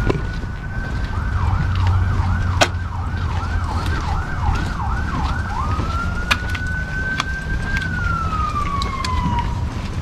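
Emergency vehicle siren: a held tone, then a fast warble of about two swoops a second, then a held tone again that slides down in pitch near the end.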